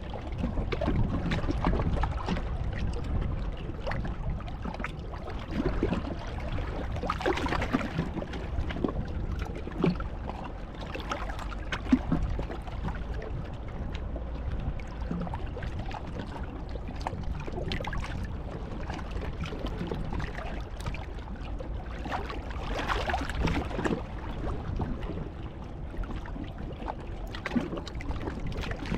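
Wind rumbling on the microphone, with scattered faint clicks and one sharp knock about twelve seconds in.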